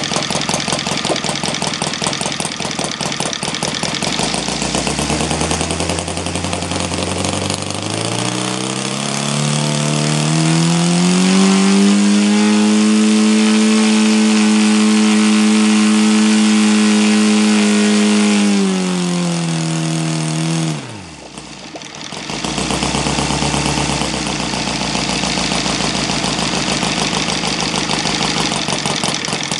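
O.S. FT300 Super Gemini flat-twin four-stroke glow model engine swinging a propeller. It rises from idle over several seconds to full throttle at about 6,400 rpm, holds there for about six seconds, then drops back. It dips in level for about a second before settling into a steady idle near 1,300–1,600 rpm.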